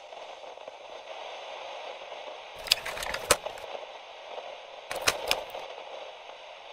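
Steady, thin hiss with crackle, broken by a quick group of sharp clicks about two and a half seconds in and another about five seconds in.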